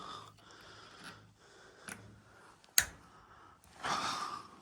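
Clicks from working a gas water heater's pilot controls: a faint one about two seconds in and a single sharp, loud one shortly before three seconds, followed near the end by a brief hiss.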